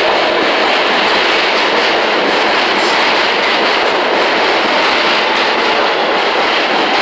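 New York City subway Q train cars running past close by along the platform. Its wheels on the rails make a loud, steady rushing noise.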